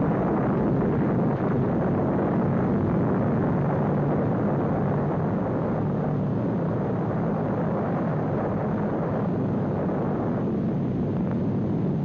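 Deep, steady rumbling roar of an atomic bomb explosion on an old newsreel soundtrack, holding at a constant level and losing a little of its upper edge after about ten seconds.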